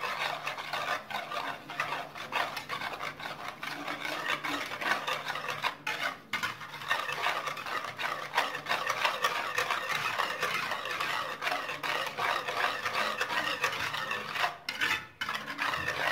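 Wire whisk beating eggs and sugar in a glazed earthenware bowl: a rapid, steady run of clicking and scraping as the wires strike and drag against the bowl. It breaks off briefly about six seconds in and again near the end.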